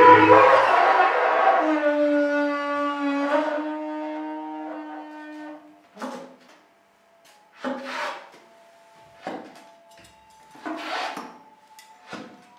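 Live free-improvised music: a sustained pitched drone with many overtones settles onto a lower note about two seconds in and fades away. After that come short, noisy accents about every second and a half over a faint held high tone.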